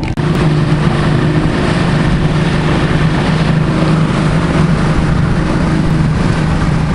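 Bass boat's outboard motor running steadily under way, a constant low hum under a loud rush of wind and water.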